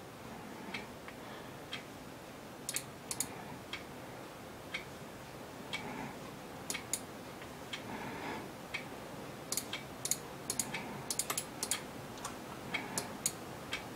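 Computer mouse clicking, quietly and a few at a time, with a quicker run of clicks in the last few seconds.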